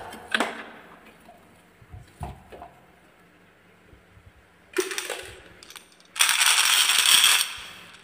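Marbles clattering and clinking together in a dense, loud rattle that fades out, with a sharp knock shortly before it. Earlier come a few light knocks from a plastic toy truck being set down.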